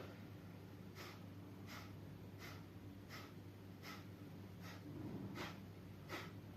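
A person's breathing in short, sharp, evenly spaced breaths, about three every two seconds, over a steady low hum.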